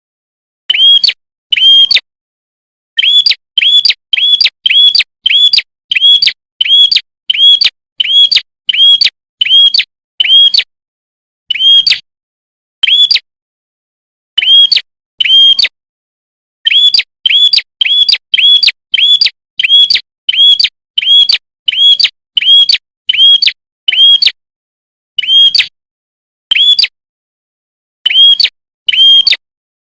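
A red-headed prenjak, a small songbird, repeating a short, sharp, high chirp about twice a second in loud, rapid runs, with a few brief pauses between runs.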